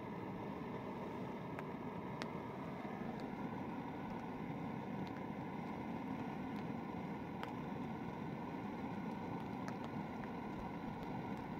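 Small camping stove burning under a cooking pot: the steady, even rush of the burner flame, with a few faint clicks scattered through it.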